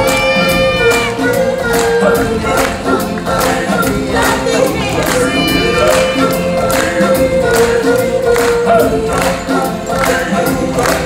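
Show music: a choir of voices singing long held notes over an accompaniment with a steady percussion beat.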